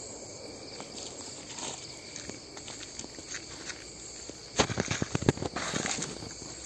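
Crickets and other night insects chirring steadily. About two-thirds of the way in, a brief run of close thumps and rustling, the loudest sound here, fits people walking past the microphone.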